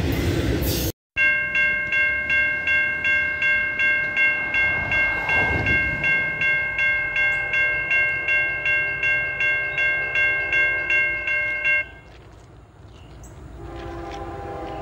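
Brief rumble of a passing freight train, then a railroad grade-crossing bell ringing steadily at about three strikes a second that stops abruptly near the end. A faint steady chord of low tones then comes in, like a distant train horn.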